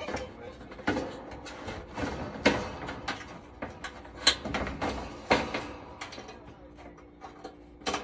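Irregular clicks, clinks and knocks of a clothes dryer's sheet-metal heater parts being handled while a new heating element is fitted, the sharpest knocks about two and a half, four and five seconds in.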